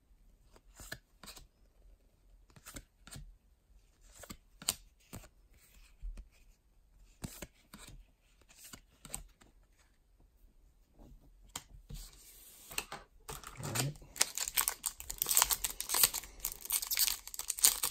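Baseball cards being flipped through one at a time, with soft short clicks and slides. In the last few seconds a foil card-pack wrapper is crinkled and torn open, loud and dense.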